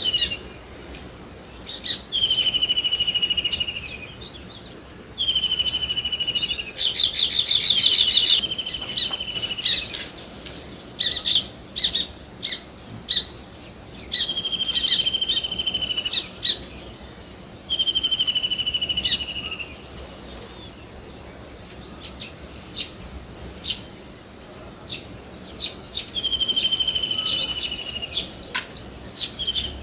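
Small birds chirping. A buzzy trilled call about two seconds long repeats every few seconds, with short sharp chirps in between and a burst of rapid chirps about a quarter of the way in.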